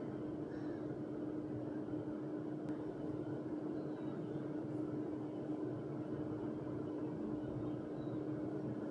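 A steady hum with one constant low tone, like an appliance or fan running, unchanged throughout.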